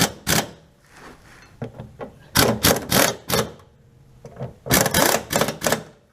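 Hand tool being worked in quick rasping strokes to tighten the fasteners on a fuel tank's sending unit, about three strokes a second in three short bursts.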